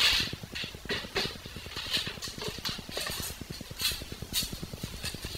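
Hand tools and metal parts being handled during bike work: a string of irregular sharp clicks and knocks, the loudest right at the start.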